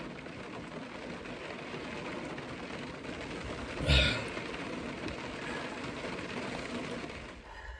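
Steady rain falling on a pickup truck's roof, heard from inside the cab, with a single thump about four seconds in. The rain sound cuts off abruptly near the end.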